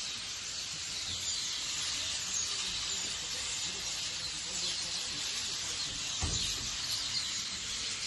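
A large flock of starlings roosting in street trees, hundreds of birds chattering and screeching together in a dense, continuous high-pitched din. A single low thump about six seconds in.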